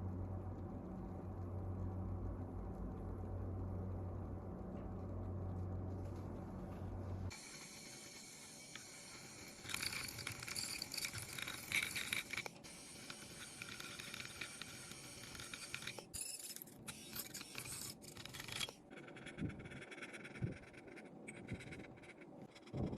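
A steady low hum for about seven seconds, then it stops suddenly and gives way to irregular light scraping and small clicks of tools working on hard parts.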